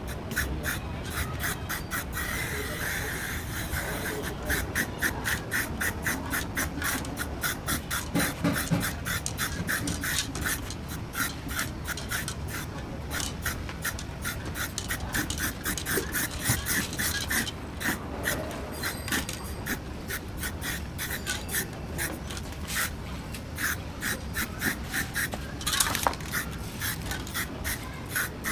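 Aerosol spray paint can with a trigger handle spraying paint onto a steel wheel in many short, quick bursts, a few each second, with one longer spray about two to four seconds in.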